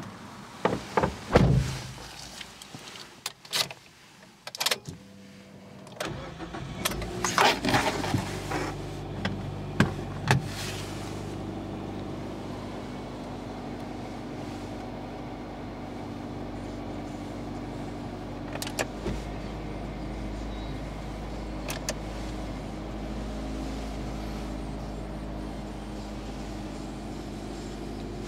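A few clicks and knocks, then the Mazda 2's 1.3-litre four-cylinder petrol engine starts about six seconds in and settles into a steady idle, heard from inside the cabin.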